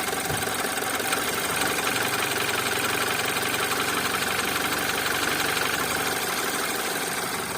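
BMW N20B20 2.0-litre turbocharged four-cylinder engine idling steadily with a rapid knock, the cause of which the owner has not yet found.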